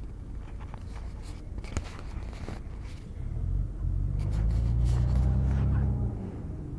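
Low engine rumble of a road vehicle that swells about three seconds in, holds, then eases off near the end, with a few faint clicks before it.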